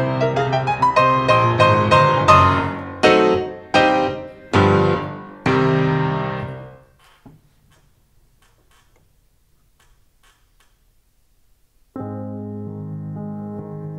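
Grand piano played solo: a fast flurry of notes, then four loud chords a little under a second apart, the last left to ring and die away. A pause of about four seconds follows, and softer, sustained playing begins near the end.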